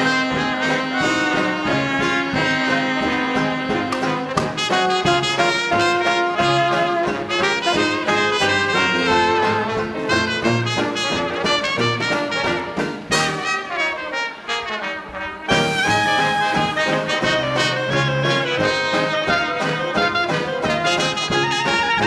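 Live 1920s-style hot dance band playing: trumpet, trombone, clarinet and saxophones over a sousaphone bass line and banjo. About 13 seconds in a falling run thins the sound briefly, and the full band comes back in about two and a half seconds later.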